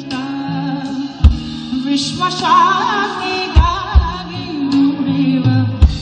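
Live band music: a male singer's voice with wavering, ornamented runs over a drum kit and bass, with kick-drum hits every second or two.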